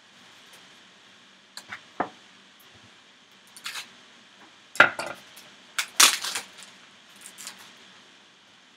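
Kitchen handling noises: a carving knife drawn from a wooden knife block and set down on a wooden cutting board, and the plastic wrap of a chicken-thigh tray handled and pulled open. They come as scattered knocks and clatters, loudest about five and six seconds in.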